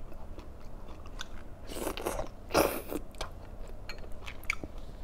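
A person chewing and biting food close to the microphone: wet chewing with small crunches and clicks, and two louder noisy bursts near the middle.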